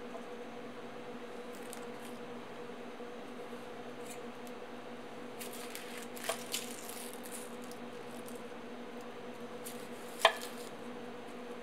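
Chef's knife slicing into a whole onion on a wooden cutting board: crisp cutting sounds with two sharp clicks about six seconds in, and a single sharp knock of the blade striking the board near the end, over a steady low hum.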